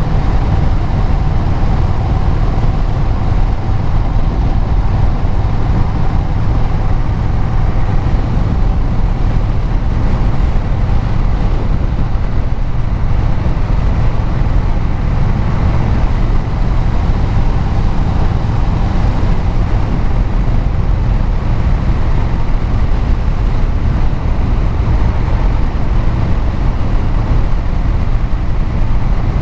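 Vehicle engine and exhaust running steadily at cruising speed, with road noise and a deep low rumble.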